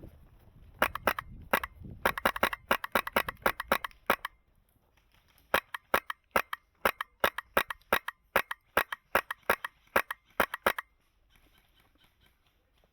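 HPA-powered airsoft rifle (Polarstar Kythera conversion) firing sharp shots in quick succession: two strings of rapid single shots, a few a second, with a pause of about a second between them.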